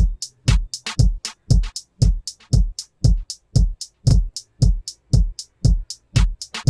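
Drum-machine beat played through a compressor plugin: a deep kick about twice a second, with short bright hi-hat-like hits between.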